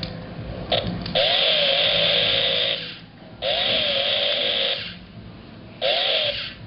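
Toy chainsaw sound effect: a buzzing rev that rises and then wavers, set off in bursts. There is a brief blip near the start, then runs of about one and a half seconds with short gaps between, and another run begins near the end.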